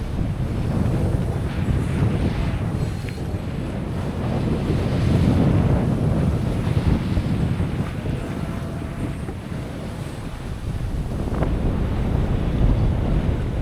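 Wind buffeting the microphone over the rush of sea waves around a sailing yacht underway, swelling and easing in gusts.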